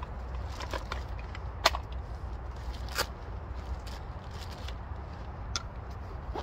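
Hands rummaging in a canvas pouch, with a few sharp knocks as a small metal tin, a knife and other items are set down on a wooden chopping stump: the loudest about one and a half seconds in, others about three and five and a half seconds in. A low steady rumble runs underneath.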